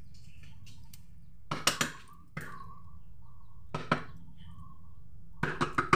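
Short clatters and knocks of kitchen things being handled, in small groups about a second and a half in, near four seconds, and again near the end, over a steady low hum.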